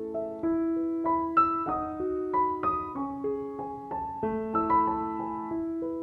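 Background music: a slow, gentle piano piece, single notes and soft chords struck one after another and left to ring.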